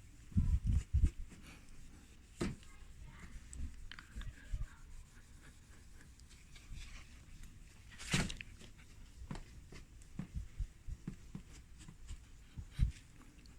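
Hand rubbing compound being worked on a plastic headlight lens: faint scuffing and rubbing, with scattered light knocks of handling and one sharper click about eight seconds in.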